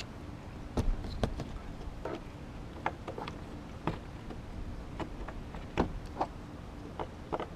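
Scattered sharp clicks and taps, about a dozen at irregular intervals, from hand tools and parts being handled while fitting the rear sliding window's linkage.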